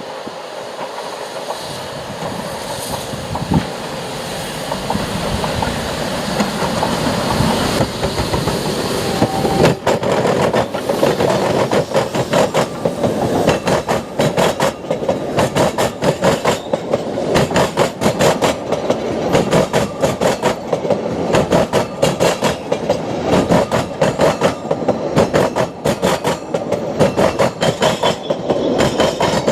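Narrow-gauge steam train passing close by. Its noise builds for about ten seconds, then the wheels of the carriages clatter over the rail joints in a quick, rhythmic run of clicks.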